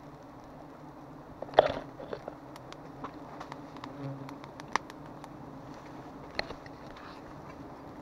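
Giant honey bees (Apis dorsata) buzzing around their exposed comb, a low steady hum. Over it come scattered sharp ticks and a louder crackle about one and a half seconds in, from a knife working into the honeycomb.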